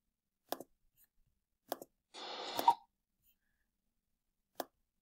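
Three sharp single clicks of a computer mouse, spaced over a few seconds, with a short hissing rush of about half a second between the second and third.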